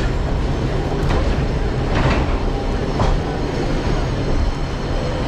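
Ikoma Cable funicular car running on its rails through a tunnel: a steady rumble of the wheels with a few sharp clicks about a second apart.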